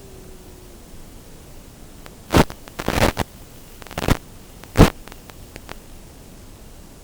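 A small electric motor's whine sliding down in pitch and fading in the first second, the power cut. Then a steady hiss with several loud, sharp crackling bumps over a few seconds.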